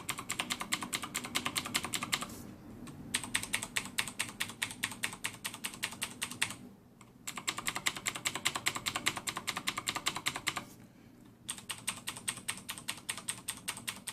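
Fast typing on clicky blue-switch mechanical keyboards, Cherry MX Blue and Gamdias Blue, in four runs of rapid keystrokes separated by short pauses. The runs differ in pitch: some carry a brighter, higher click, fitting the Cherry MX Blue, which is described as higher-pitched than the heavier-sounding Gamdias Blue.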